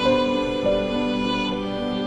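Background music: slow, sad-sounding melody with a bowed string instrument such as a violin holding long notes.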